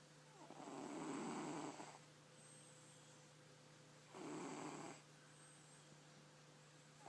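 A domestic cat snoring in its sleep: two snoring breaths about three seconds apart, the first longer, with the next one beginning at the very end.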